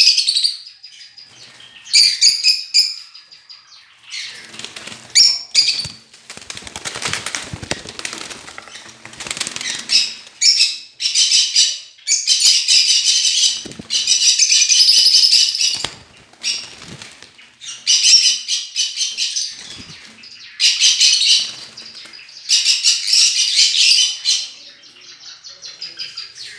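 Cockatiel giving repeated harsh, loud calls in bursts of up to about two seconds, with a stretch of wing flapping from about five to ten seconds in.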